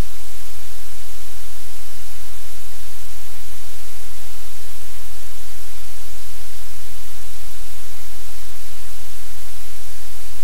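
Loud, steady static-like hiss with a strong low hum underneath, unchanging throughout.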